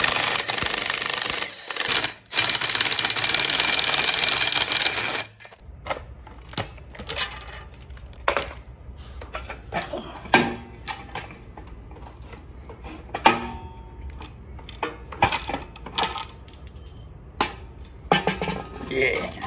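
Cordless impact driver hammering loose the exhaust's 10 mm bolts in two long bursts, with a short break near two seconds, stopping at about five seconds. After that come scattered clinks and knocks as the metal exhaust pipe and muffler are handled.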